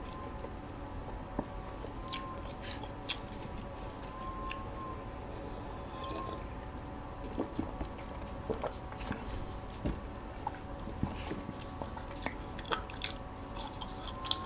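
Faint close-miked chewing of walnut cake (hodugwaja) and walnut pieces: soft wet mouth clicks and small crunches scattered irregularly through, over a faint steady hum.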